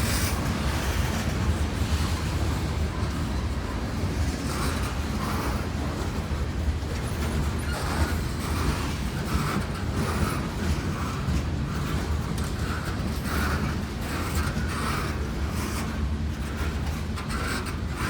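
Norfolk Southern freight train's cars rolling past: a steady low rumble with a regular clickety-clack of wheels over the rail joints.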